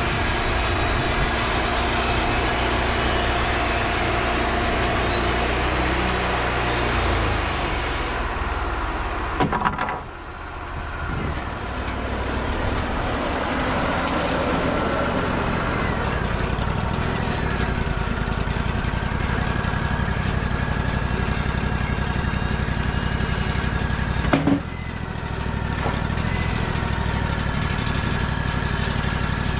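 Wood-Mizer LT40 band sawmill running steadily while its blade cuts through an oak timber. A couple of sharp knocks sound, one about ten seconds in and another some seconds before the end.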